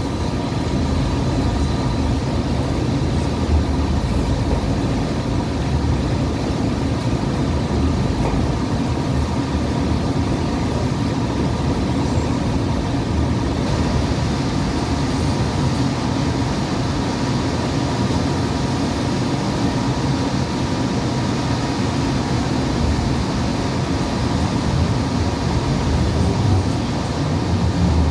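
Hudson-Bergen Light Rail car running along the track, heard from inside the car: a steady rumble of wheels and running gear with a few faint steady tones over it.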